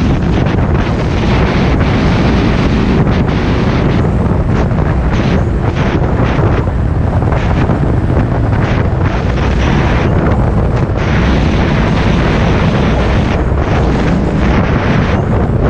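Snowmobile running at a steady speed along a snow trail, with heavy wind buffeting the microphone over its engine and track noise in a constant loud rumble.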